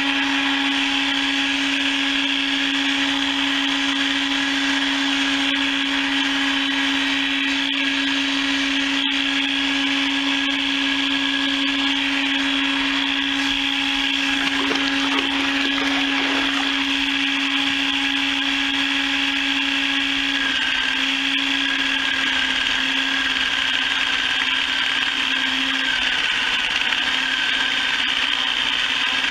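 Motorized chicken plucker running steadily, a motor hum over a whirring hiss; about two-thirds of the way through the hum drops slightly in pitch and starts to waver.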